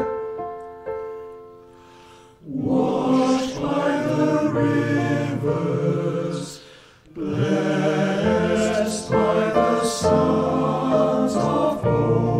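Male voice choir singing a slow choral piece: a held chord fades away over the first two seconds, then the voices come back in together, with a brief break for breath about seven seconds in before the next phrase.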